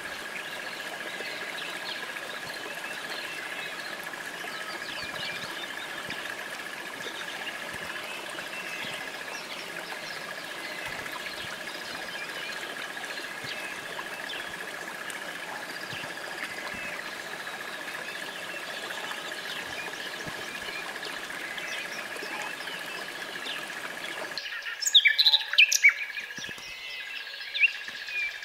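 Steady outdoor background hiss with a thin steady high tone and faint, scattered bird chirps. About 24 seconds in, this gives way to a common nightingale singing loudly in short phrases of bright whistles and rapid repeated notes.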